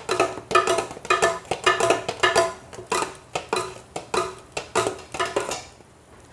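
Metal spatula rapidly striking and scraping a giant iron griddle pan while chopping and stir-frying fried rice, a quick rhythmic clanging of about four strikes a second, each with a short metallic ring. The clanging stops shortly before the end.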